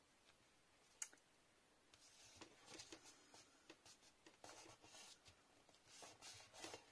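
Faint rustling and rubbing of paper as hands press and smooth glued design paper flat onto a card, with a light tick about a second in.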